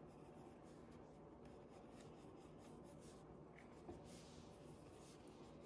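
Faint scratching of a mechanical pencil's graphite on paper in quick, irregular squiggly strokes, shading fur.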